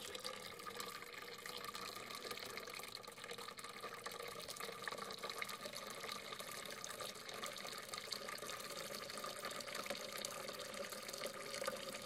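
Water draining in a steady, unbroken stream from the drain of a Keurig B140 commercial coffee maker's internal tank, splashing into a sink.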